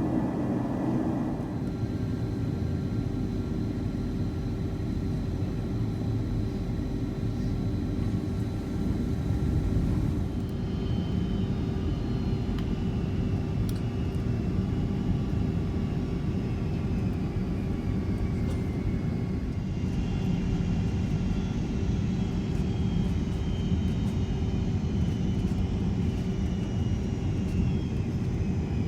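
Boeing 767-300 jet airliner noise: the steady roar of the engines and airflow with a constant hum. From about a third of the way in, faint high whines slowly fall in pitch.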